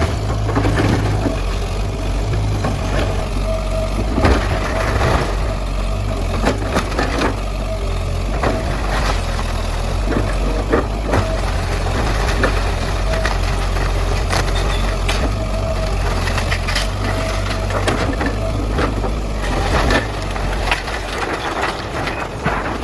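1994 Kobelco SK100-1 excavator's diesel engine running steadily under load while it demolishes a house, with repeated crunching and cracking of breaking debris.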